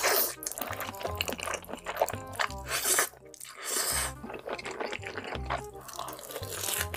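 Wet slurping and chewing of a big mouthful of jjajangmyeon (black-bean-sauce noodles), with many short wet smacks. Background music with a repeating bass beat plays underneath.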